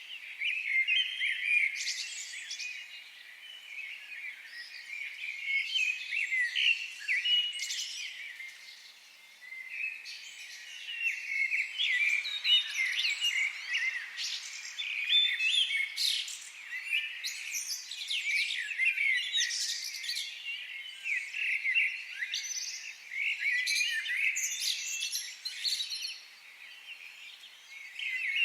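Several small birds chirping and singing together, a dense run of short, high chirps and trills that eases off briefly twice.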